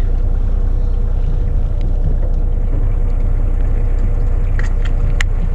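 Fishing boat's engine running steadily, a constant low rumble with a faint hum. A few short clicks come near the end.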